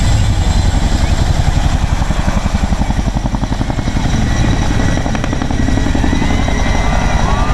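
Boeing CH-47 Chinook tandem-rotor helicopter flying past, loud. Its two rotors give a steady, rapid beat of blade slap over the engine noise.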